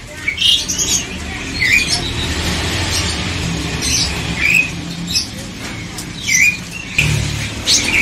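Caged songbirds giving short, scattered chirps a second or two apart, over a steady low rumble.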